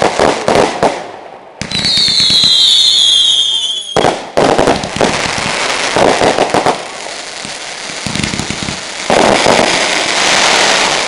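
Fireworks going off: rapid cracks and bangs, then a high whistle that falls in pitch for about two seconds, then dense crackling and popping that grows louder near the end.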